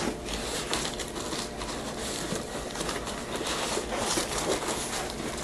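Rustling and scraping of a cardboard box being handled and opened by hand, with small irregular crinkles and taps.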